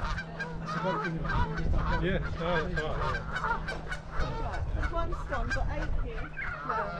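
A large flock of waterfowl calling, many short calls overlapping one another without pause.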